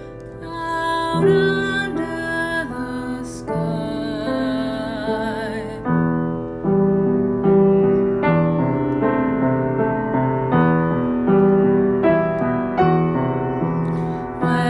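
Slow, gentle instrumental music on keyboard, sustained chords stepping from one to the next about once a second.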